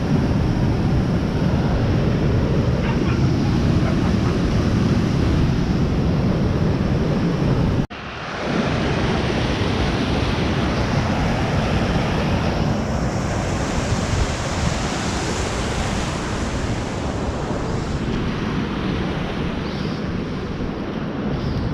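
Waterfall on the River Tees, rushing steadily and loudly. The sound breaks off abruptly about eight seconds in and then carries on, lighter in the low end.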